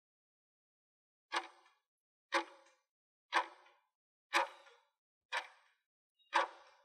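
Countdown-timer ticking sound effect: a sharp clock-like tick once a second, six in all, starting about a second and a half in. Each tick has a short ringing tail.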